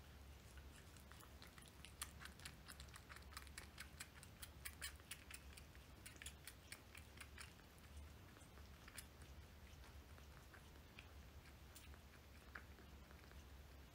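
A kitten sucking milk from a feeding syringe: faint, wet smacking clicks of its mouth on the syringe tip, several a second, thinning out after about eight seconds.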